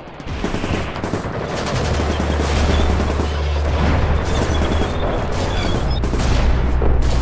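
Battle sound effects: dense, rapid gunfire with explosions, over a low steady drone that comes in about two seconds in.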